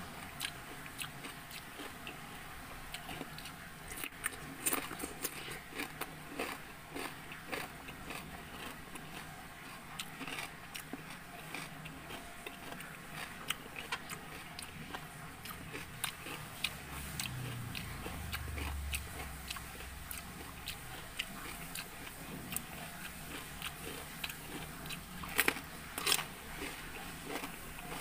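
A person chewing raw cucumber close to the microphone: repeated crisp crunches and wet mouth clicks, with a brief low rumble about two-thirds through and the sharpest crunches near the end.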